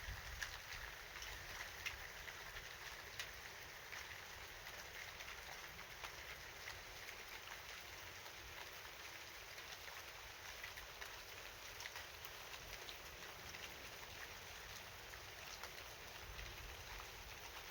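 Steady rain falling, a soft even hiss with scattered sharper ticks of individual drops striking a surface.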